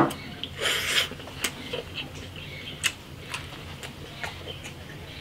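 A person eating: scattered wet smacking and clicking chewing sounds, with a short breathy rush about a second in.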